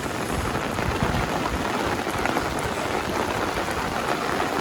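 Steady rain pattering on surfaces, an even hiss of falling drops.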